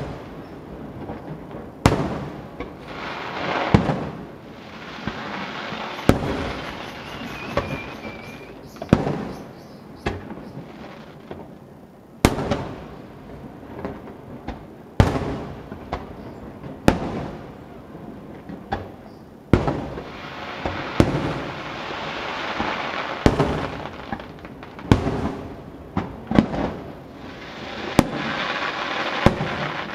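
Fireworks display: shells bursting in a string of sharp booms a second or two apart, each trailing off, with crackling between them. A short high whistle sounds about seven seconds in.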